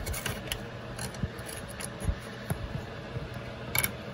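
Small scattered metallic clicks and taps as fingers hook a spring onto the throttle linkage lever of a Kohler Command V-twin engine, with a sharper click near the end, over a low steady hum.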